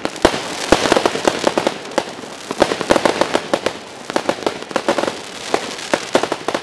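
Zeus Fireworks 'Phoenix Rising' 100-shot barrage cake firing: rapid sharp pops of shots going off, several a second, over dense crackling from the corkscrew tails and bursts.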